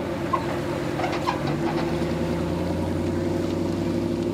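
Pickup truck engine running steadily at low revs as it tows a personal watercraft on its trailer up and out of the water at a boat ramp.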